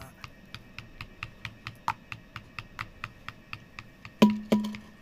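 Plastic spoon clicking against a heat-resistant glass bowl while stirring a watery mixture, about four to five light clicks a second. A little after four seconds, two harder knocks set the glass bowl ringing.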